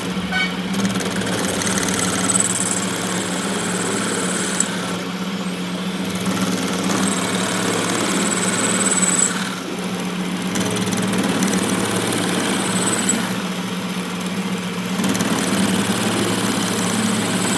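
A workshop machine running steadily with a low, even hum. An intermittent high whine comes and goes over it.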